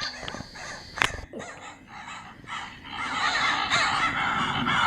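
Crows cawing over and over, the caws growing louder and more continuous about three seconds in, with a sharp click about a second in.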